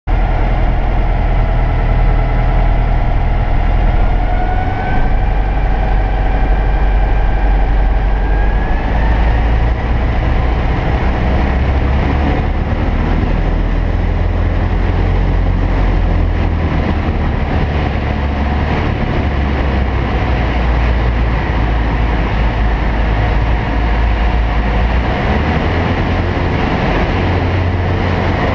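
Light aircraft's piston engine and propeller at takeoff power, heard from inside the cabin during the takeoff roll. The engine note climbs in steps over the first several seconds, then holds steady and loud.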